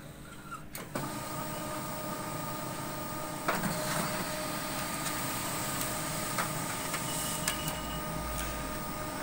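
HP LaserJet Pro MFP M126nw laser printer making a copy: a click about a second in, then the mechanism runs steadily with a few clicks as it picks up a sheet and feeds it through. It is feeding paper normally, the pickup fault cured by cleaning the pickup roller.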